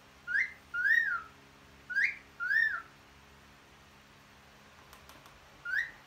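Cockatiel wolf-whistling: two wolf whistles, each a short rising note followed by a longer note that rises and falls, then one more rising note near the end.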